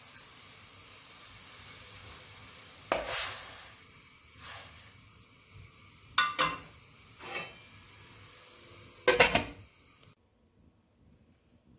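Food sizzling steadily in a frying pan, with a utensil stirring and knocking against the pan about five times. The sizzling cuts off suddenly about ten seconds in.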